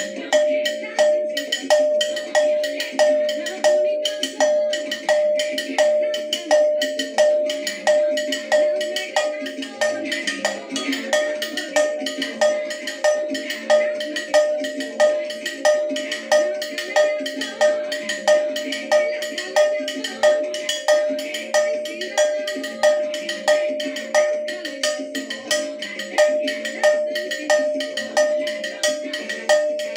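Hand-held cencerro (Latin cowbell) struck with a wooden stick in a steady, repeating rhythm. Each stroke gives a bright metallic clank that rings at one clear pitch. There is about one accented stroke a second, with lighter strokes in between.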